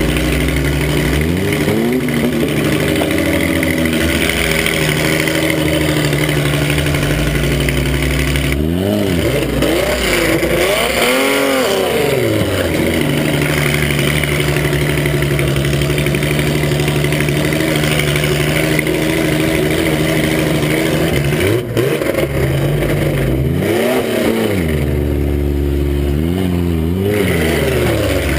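Mini truck's engine heard from inside the cab, running hard and revving up and back down several times, around ten seconds in and again over the last few seconds.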